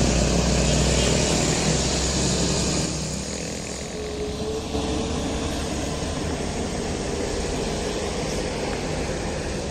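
Mitsubishi Canter light truck's diesel engine passing close by, loudest for the first three seconds, then giving way to steady road traffic noise.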